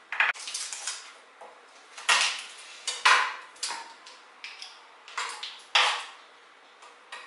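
Clinks and knocks of kitchenware as chopped onion is spread by hand into a glass baking dish of tomato pieces, with a wooden cutting board alongside. About half a dozen sharp knocks come at irregular intervals.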